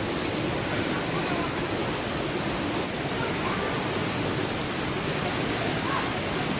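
Waterfall rushing in a steady, even roar of falling water, with a few faint distant voices over it.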